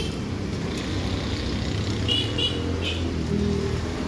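Street ambience with a steady low rumble of road traffic, and three short high squeaks about two to three seconds in.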